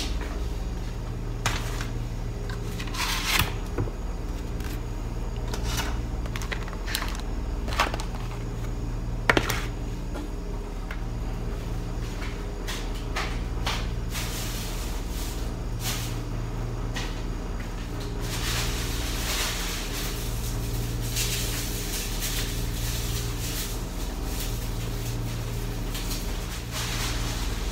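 Kitchen handling sounds: scattered knocks and clatters of cupboard doors and dishes, over a steady low hum. From about two-thirds of the way through, a continuous rustling hiss joins in.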